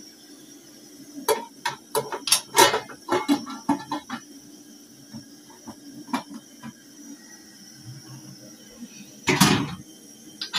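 Aluminium cooking pot and its lid clinking and knocking as the lid is handled and set onto the pot: a quick run of sharp metal clicks and knocks, then a single knock. Near the end comes a louder noise lasting about half a second.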